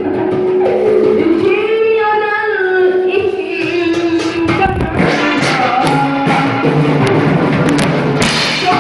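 Live band music: an electronic keyboard plays a winding, ornamented melody over a drum kit, and the drums come in more heavily about halfway through.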